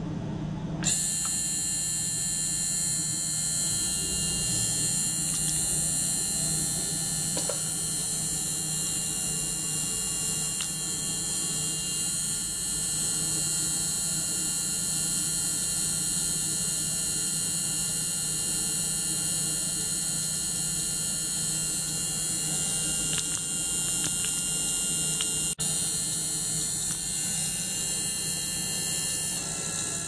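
Ultrasonic cleaning bath switching on about a second in, then running with a steady high-pitched hiss and whine made of many thin tones, over a steady low hum. Late on, the sound drops out for an instant.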